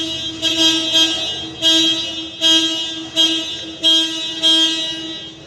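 A vehicle horn held on one steady pitch, swelling in loudness about every 0.7 seconds, then cutting off abruptly near the end.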